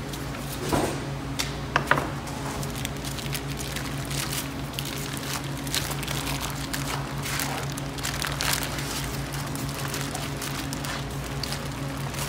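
Plastic vacuum-pack bag crinkling and rustling as it is opened and peeled off a large boneless beef bottom round, with a few sharper clicks about two seconds in. A steady low hum runs underneath.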